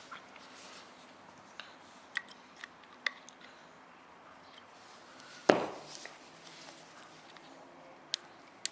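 Scattered small clicks and taps of a small .050 Allen wrench and a Leupold scope turret being handled, with one louder knock about five and a half seconds in.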